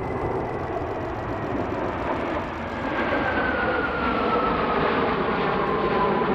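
A formation of Kawasaki T-4 jet trainers flying overhead: a rushing jet roar that grows louder, with a high whine that slides down in pitch over the second half as they pass.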